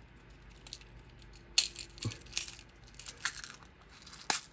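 Small plastic beads clicking against a clear plastic capsule as its two halves are pressed together: a few separate light clicks, the sharpest near the end.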